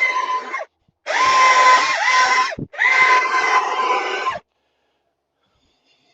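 A small high-speed power tool whining at a steady pitch as it cuts wood, in three runs with short breaks about half a second and two and a half seconds in, its pitch dipping briefly under load; it stops about four and a half seconds in.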